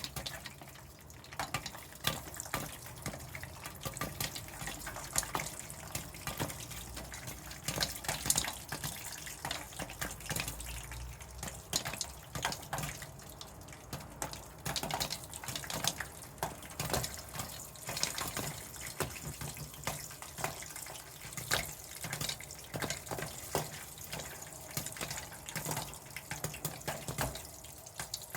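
Corn kernels popping as they are heated into popcorn: irregular sharp pops, several a second, over a steady hiss.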